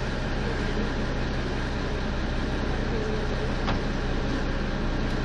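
Small harbour boat's motor running steadily under way, a constant low drone with water and wind noise over it.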